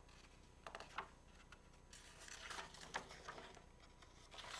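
Pages of a hardcover picture book being turned and flipped by hand: faint paper rustling with a few light taps, and a longer rustle about halfway through.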